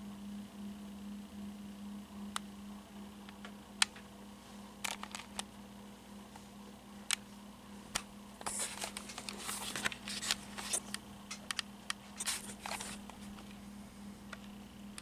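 42-inch Encon 'Corinthian' flush-mount ceiling fan running on low speed, its motor giving a steady hum. Scattered sharp clicks, with a stretch of rustling and crinkling from about eight to thirteen seconds in.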